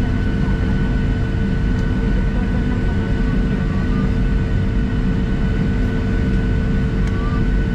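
Cabin noise inside a Boeing 737-700 taxiing: the CFM56-7B turbofans running at low power, a steady rumble with a steady high whine over it.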